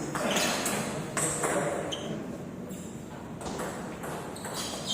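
Table tennis balls being struck back and forth in a rally: a string of sharp, irregular clicks from the balls hitting the paddles and the table, spaced roughly half a second to a second apart.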